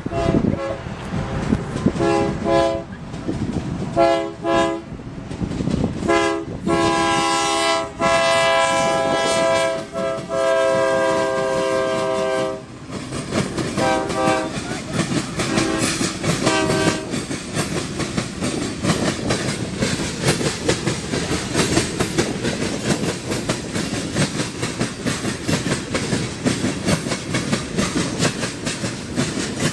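BNSF freight locomotive's air horn sounding several blasts, one held for about six seconds, then the tank cars rolling past with a steady rumble and rapid wheel clatter over the rail joints.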